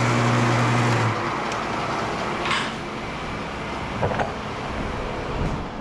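Electric wire-stripping machine humming, then switched off about a second in. After that a steady background noise remains, with a couple of light knocks.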